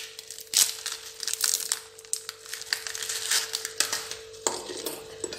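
Plastic wrapper of an Oreo biscuit packet crinkling and tearing as it is torn open by hand, a dense run of sharp crackles.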